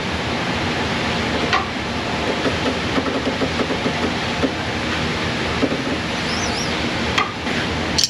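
Gas torch flame hissing steadily while heating a stuck nut, with a couple of sharp clicks.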